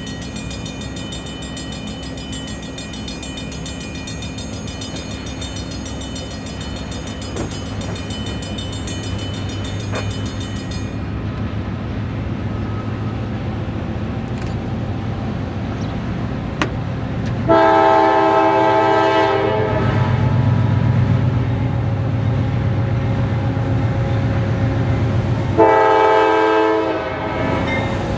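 Approaching diesel locomotive: a low engine rumble grows louder, with two blasts of its multi-note air horn, a long one about two-thirds of the way in and a shorter one near the end.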